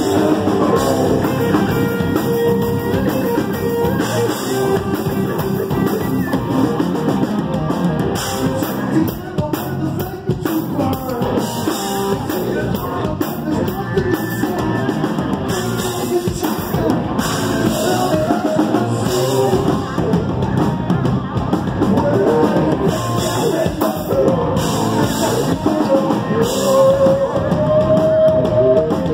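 Live rock band playing loud, with a vocalist singing into a microphone over electric bass and drums.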